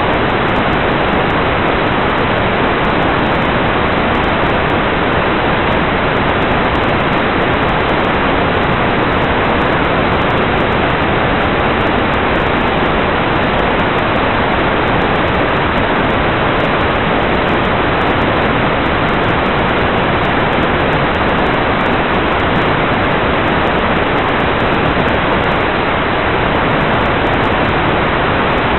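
Steady, loud hiss of static from an analog FPV video receiver with no signal, even and unchanging throughout.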